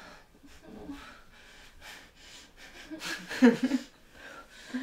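A woman's breathy exhalations, then a short stifled laugh about three seconds in.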